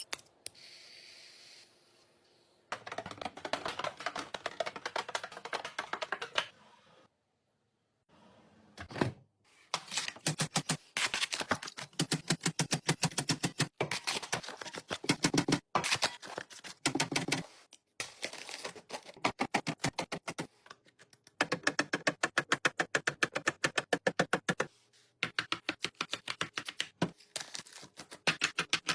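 Runs of rapid small hard clicks, several a second, each run lasting a few seconds with short pauses between.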